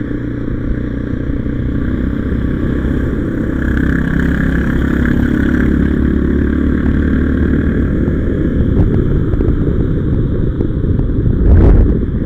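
Motorcycle engine running under way with wind and road rush, picking up speed a few seconds in. A loud low thump comes near the end.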